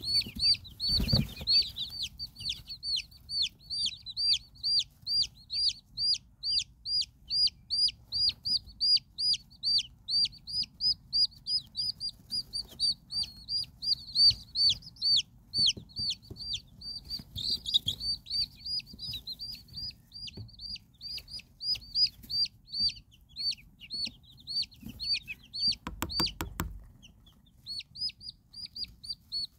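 Silkie chicks peeping steadily: short, high-pitched peeps about three a second, with a short lull near the end. A brief rustle about a second in and another near the end.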